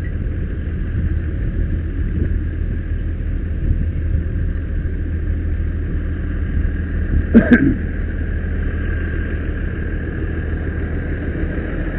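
Fire truck engine running steadily at pumping speed with its water pump engaged: a steady low rumble with a faint high whine over it. A short voice cuts in briefly about halfway through.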